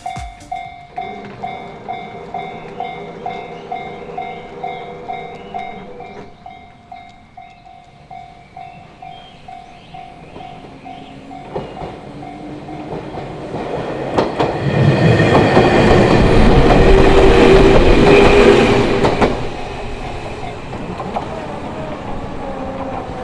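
Railway level-crossing warning bell ringing in a steady repeating ding, then a Fukushima Kotsu electric train running past over the crossing, loud from about a third of the way in until a few seconds before the end, with some clickety-clack of the wheels.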